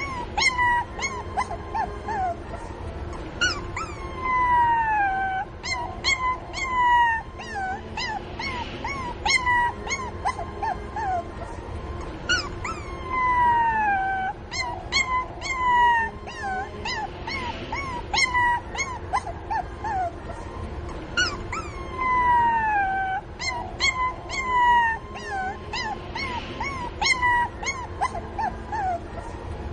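Puppy crying for its mother: quick high-pitched whimpers and yips, several a second, with a longer whine sliding down in pitch every nine seconds or so.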